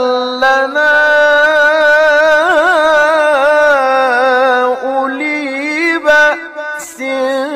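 A man reciting the Quran solo in the ornate melodic tilawah style. His voice holds long, wavering notes with quick ornaments in the middle, breaks off briefly near the end, then carries on.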